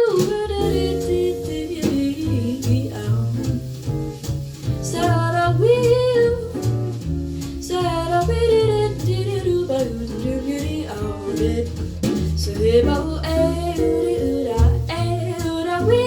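A recorded song with bass, guitar and a voice, played back through Kef Reference 104aB loudspeakers driven by a Quad 405 power amplifier. The music is steady and full, with a strong bass line throughout.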